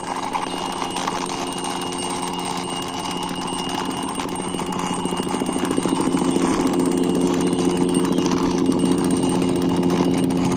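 Plastic toy police helicopter pushed along by hand, its wheels rolling with a steady whirring rattle over a low hum, getting louder about halfway through.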